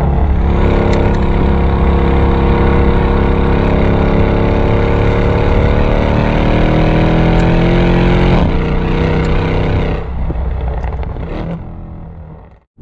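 Mercedes E63 AMG's twin-turbo V8 through its tuned exhaust, heard close up at the rear bumper, pulling in second gear with the pitch climbing steadily for about eight seconds. Then the revs drop sharply as the throttle closes, a few sharp pops follow, and the sound fades away near the end.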